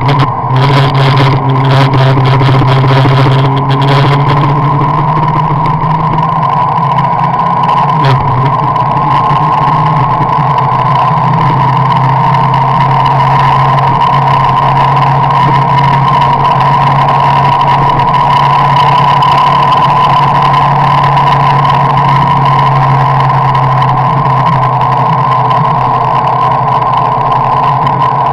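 A car driving at a steady speed, heard from inside the cabin: a loud, unchanging drone of engine and road noise. There are a few light rattles in the first few seconds.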